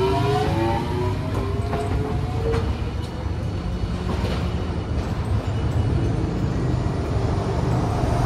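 Hiroden Green Mover low-floor articulated tram pulling away: the electric traction motors give a whine of several tones that climbs in pitch over the first two to three seconds, over a steady low rumble of wheels on the rails.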